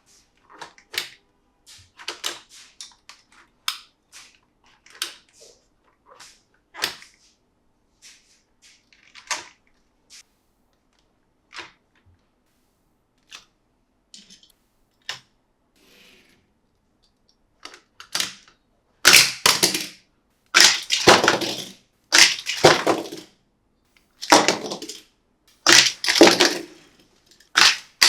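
Hard plastic toy parts being handled: scattered light clicks and taps, then, starting about two-thirds of the way in, a run of louder crackling bursts, each about a second long and coming roughly every second and a half.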